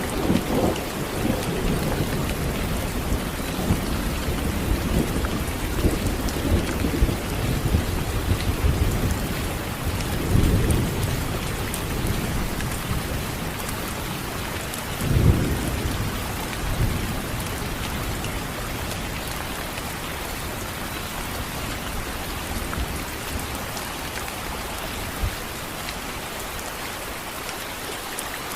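Steady heavy rain hissing, with rolls of thunder rumbling in the first half and one sharper thunderclap about halfway through; the thunder dies away toward the end while the rain keeps on.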